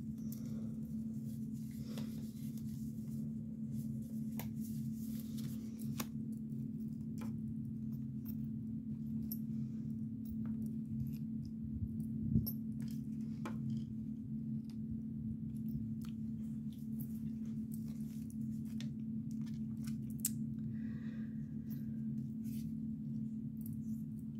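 Sterling silver charms clicking and clinking as they are handled and set into a velvet-lined jewelry tray, with one louder knock about halfway through, over a steady low hum.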